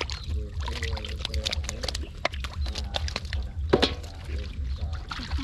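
Hands splashing and sloshing in shallow muddy water, a run of short irregular splashes with one louder splash about two-thirds of the way through, over a low steady rumble.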